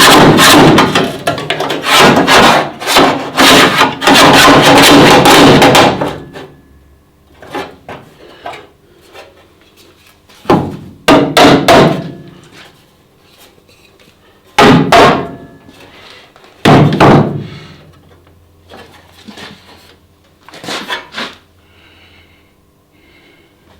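Hammer blows on car-body sheet steel: a rapid run of strikes for about six seconds, then a few single knocks spaced out over the rest of the time.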